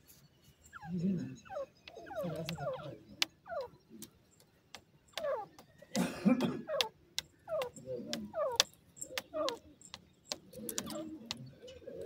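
Grey francolins giving short calls that slide downward in pitch, repeated irregularly, mixed with sharp ticks and a louder burst about six seconds in.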